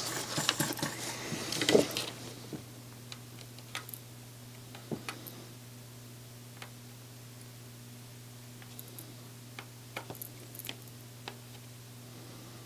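Soldering iron tip and circuit board being handled while solder bridges on an IC's pins are cleared: noisy handling in the first two seconds, then faint scattered small clicks and taps over a steady low hum.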